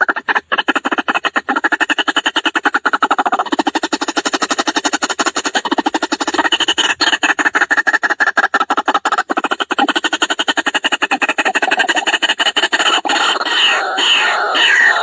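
White-breasted waterhen (ruak-ruak) calling: a rapid, even run of repeated call notes, several a second, turning near the end into louder, more varied calls with falling notes.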